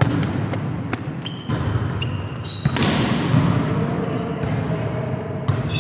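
Volleyball rally: the ball struck several times in sharp hits, starting with a forearm pass, with short squeaks of sports shoes on the court floor, echoing in a large gym.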